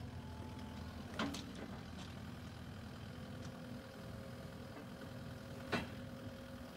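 Kubota KX080-4 midi excavator's diesel engine idling steadily, with a thin steady tone joining about halfway through. Two short, sharp knocks come through, about a second in and again near the end.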